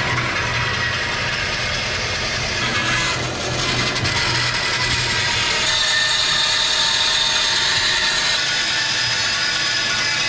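Harbor Freight vertical bandsaw running and cutting through the aluminium end tank of a Mishimoto radiator. There is a steady motor hum under the blade noise at first, and the cutting grows slightly louder and brighter about halfway through.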